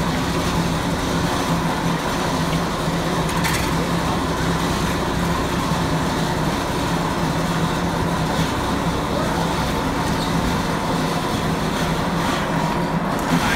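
An engine running steadily: a constant low hum over a rushing noise, with one short click about three and a half seconds in.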